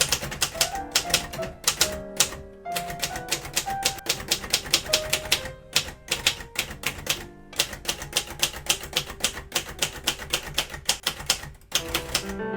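Typewriter with a cursive typeface typing quickly: rapid key strikes several a second, broken by a few brief pauses, over background music.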